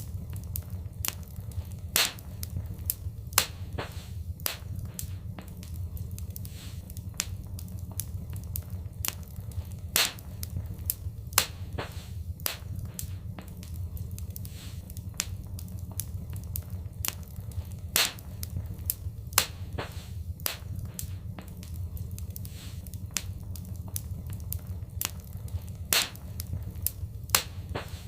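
Wood fire in a fireplace crackling: a constant patter of small irregular snaps with a louder pop every few seconds, over a steady low rumble of the flames.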